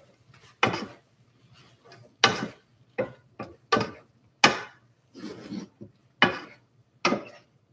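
A cooking utensil stirring spaghetti in a sauté pan, knocking and scraping against the pan in about nine irregular strokes.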